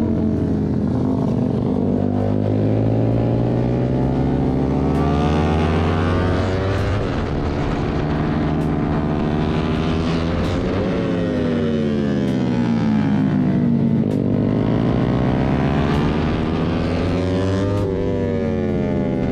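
Yamaha R15 V3 motorcycle engine at track speed, revs climbing and falling several times with gear changes, with sharp drops about eleven and fourteen seconds in, and a second motorcycle close ahead. Wind noise rushes over the microphone throughout.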